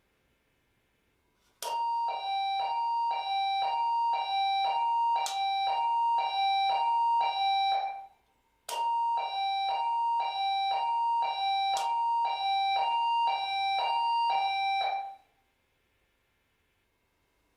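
Electronic two-tone alarm sounder, alternating a high and a low beep, about one pair every 0.7 s. It sounds in two runs of about six seconds each, with a short gap between them and a sharp click at the start and midway through each run.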